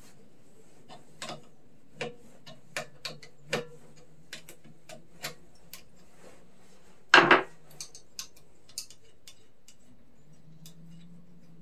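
Tools and mower parts being handled while a lawn mower is taken apart: scattered light clicks and taps, with one louder clatter about seven seconds in.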